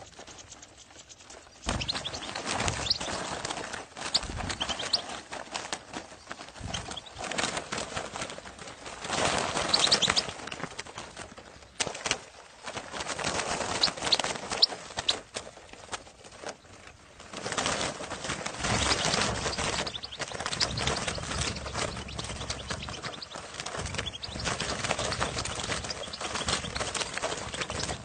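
Dozens of European goldfinches fluttering in a crowded crate, wings beating in irregular flurries, with a few brief high chirps.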